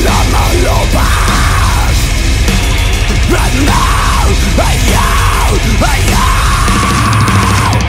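Heavy metal song at full volume: dense distorted guitars over a heavy low end, with recurring arching melodic lines riding on top.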